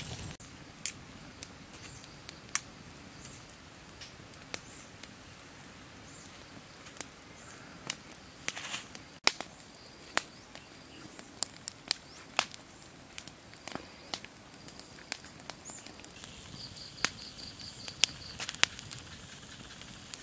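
Open wood fire of dry sticks crackling, with scattered sharp snaps and pops over a faint steady hiss.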